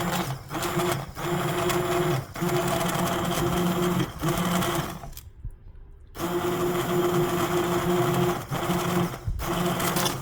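Electric blender motor running in pulses as it blends cooked vegetable soup: a steady hum broken by several brief stops, with a longer pause of about a second around the middle before it runs again.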